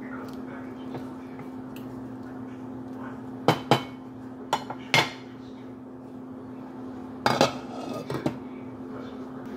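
Sharp clinks and knocks of cookware on a stainless steel soup pot: a few knocks around the middle, then a glass lid set down on the pot with a short clatter of clinks near the end, over a steady low hum.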